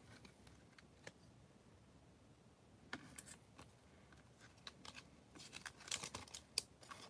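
Quiet handling of trading cards in plastic sleeves and a bag: a single click about a second in, then from about three seconds on a busy run of small clicks and crinkly plastic rustles as the cards are slid into a plastic bag.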